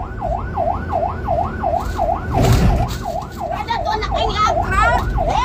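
Siren wailing in fast, even up-and-down sweeps, about two a second. A brief rush of noise comes about halfway, and high rising cries join in near the end.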